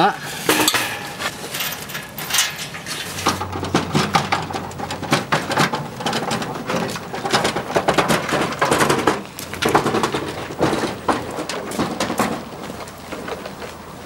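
Metal tools and a loaded wheelbarrow clattering and clinking as work gear is packed up and wheeled over cobbles. Irregular sharp knocks and rattles that die down near the end.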